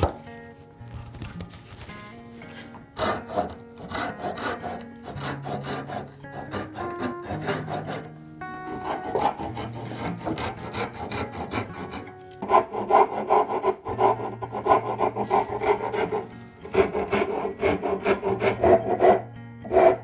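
Hand-tool strokes in zebrawood: a backsaw cutting back and forth through the round blank, and a file rasping across its end in quick rhythmic strokes. The strokes grow louder and denser in the second half.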